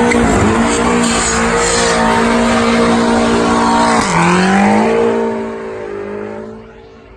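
BMW sedan's engine held at high revs during a burnout, tyres squealing against the pavement. About four seconds in the revs drop sharply and climb again, and the sound fades near the end.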